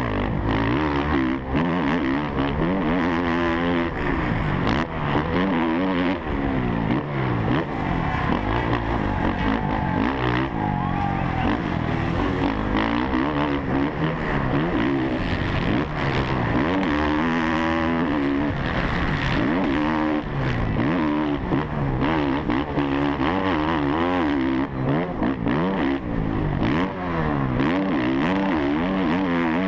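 A 450cc four-stroke motocross bike's engine, heard from the rider's helmet, revving up hard and dropping back again and again as the throttle is opened and closed through the corners and jumps of a dirt track.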